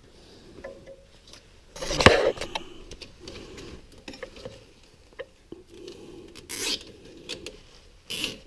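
Nylon zip tie being fastened around a wiring harness: two short zipping rasps as the tie is pulled tight, near the end, after a louder knock of handling the wires about two seconds in, with small clicks in between.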